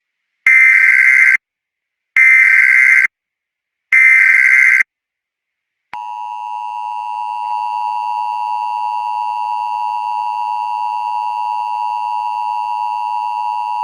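Emergency Alert System header and attention signal. Three one-second bursts of warbling data tones, the SAME header, come about a second apart. After a short pause, the steady two-tone EAS attention signal begins about six seconds in and holds as a loud, harsh chord.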